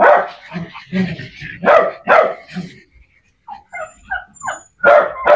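Small dogs barking and yipping in short, sharp barks, one every half second or so, softer for a moment past the middle and loud again near the end.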